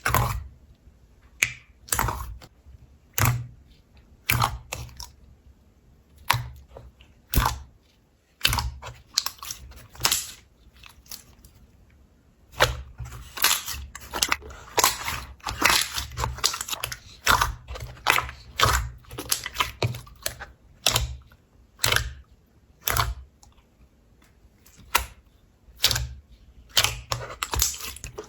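Slime being squeezed and pressed by hand, making sharp crackling pops: single pops about once a second, then a denser run of crackling in the middle, then spaced pops again.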